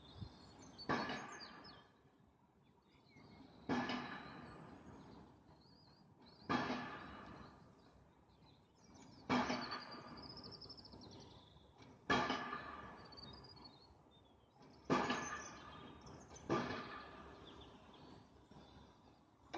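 Loud, heavy thumps repeating about every three seconds, seven in all, each dying away over about a second. Birds chirp faintly between them.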